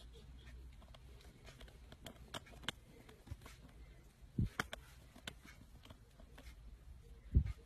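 Faint clicks and two soft low thumps, about four and a half seconds in and near the end, as a hand pats a cat on the head.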